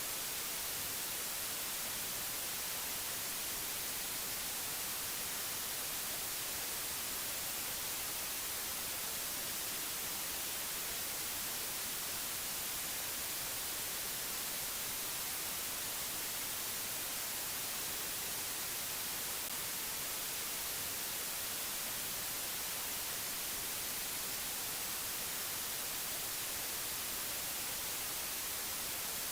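Steady, unchanging hiss of white-noise-like static, strongest in the high frequencies.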